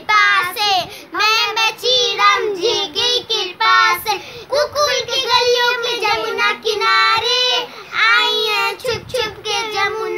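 Young girls singing without accompaniment, the voice sliding between notes and holding some of them.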